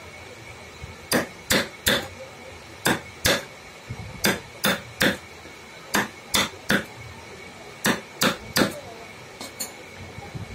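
A wooden mallet drives a steel carving chisel into a block of wood. There are about fourteen sharp knocks, mostly in quick groups of three, with a short pause between groups.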